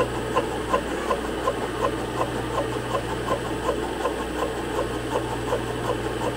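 Milling machine boring head turning slowly in low range, its single-point boring bar cutting inside the steel eye of a cylinder rod, over the steady hum of the mill's motor. A short tick comes about three times a second: the cutter is biting harder on one side of the bore, which the operator puts down to the head not being perfectly centred.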